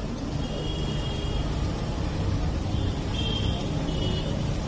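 Steady low rumble of street traffic, with a few short, thin high-pitched tones about a second in and again near the end.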